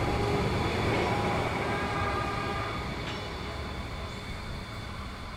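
Electric light-rail tram running along the track and pulling away, its rumble fading steadily, with a high whine in the first half.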